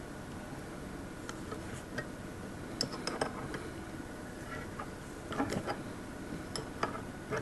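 Light metallic clicks and taps of a spanner on an N-type coaxial connector as its back nut is tightened, coming a few at a time with pauses between.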